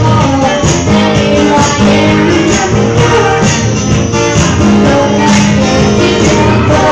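Live acoustic band music: strummed acoustic guitar with singing into microphones and percussion hits, loud and continuous.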